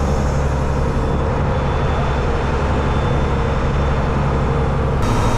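Fishing boat's diesel engine running steadily under way, a deep, even hum.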